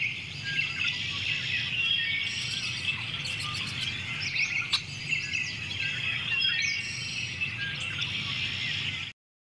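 Many small birds chirping and calling at once, dense overlapping short notes and quick trills, over a low steady hum; it cuts off abruptly near the end.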